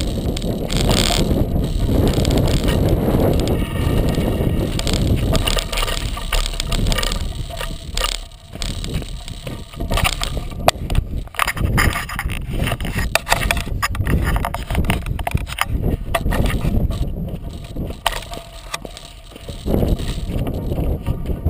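36-inch Coker unicycle tyre rolling down a dry dirt and gravel trail, picked up by a camera on the unicycle's frame. A dense low rumble runs for the first several seconds, then gives way to a long run of sharp crunches and clicks from grit and stones under the tyre and the rattling frame.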